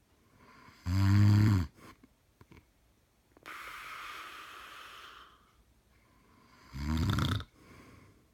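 Snoring: two loud snores, each under a second long and about six seconds apart, with a long breathy hiss in between.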